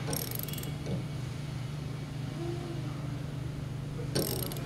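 Hand ratchet wrench clicking in two short runs, at the start and again near the end, as it is cranked to put twisting load on a steel door. A steady low hum runs underneath.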